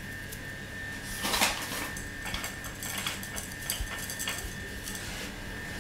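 Hands rubbing flour onto a wooden rolling pin: a brushing rustle about a second and a half in, then light taps and clicks of the pin and hands on a stainless-steel counter. A steady hum with a faint high whine runs underneath.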